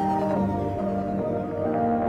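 Background music: ambient music of held notes that change every half second or so.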